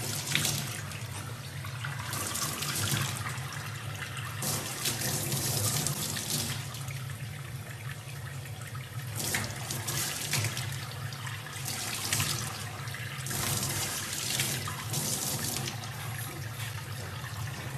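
Tap water running into a stainless steel sink, the splashing rising and falling unevenly as a young chimpanzee rubs its hands in the stream.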